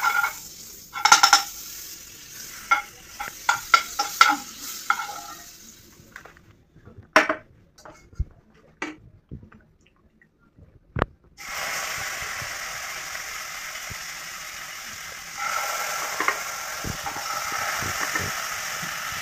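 Spatula scraping and tapping in a non-stick frying pan as butter melts. After a few near-quiet seconds with a couple of knocks, marinated chicken pieces go into the hot butter and sizzle steadily, the sizzle getting louder about two-thirds of the way through as more pieces are added.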